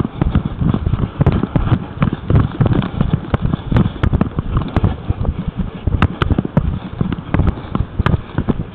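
Rapid, irregular thumps and sharp clicks from a head-strapped camera being jostled as its wearer walks, mixed with footfalls.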